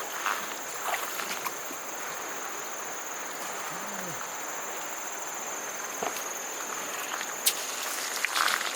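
Insects droning steadily at one high pitch over outdoor background hiss, with a few short knocks near the end.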